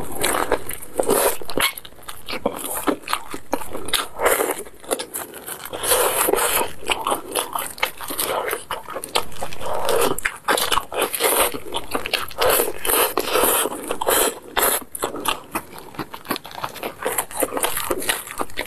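Someone eating sauced fried chicken: crunching the fried coating, tearing the meat and chewing wetly with the mouth open, with many sharp crackles and clicks.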